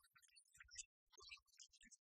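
Near silence: only faint, broken-up hiss.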